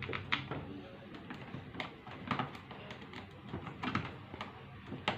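Scattered light clicks and knocks of an angle grinder's housing and carbon-brush caps being fitted and closed by hand.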